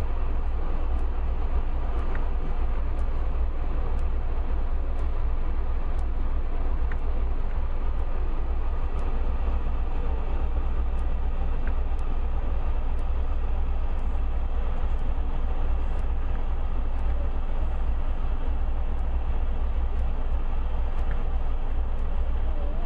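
Land Rover trials vehicle's engine pulling slowly up and over a mud mound: a steady low rumble with no clear rises in revs.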